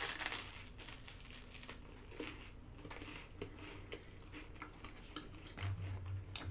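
Close-up eating sounds of garlic toast being bitten and chewed, with short crisp crunches scattered throughout. A brief low hum comes near the end.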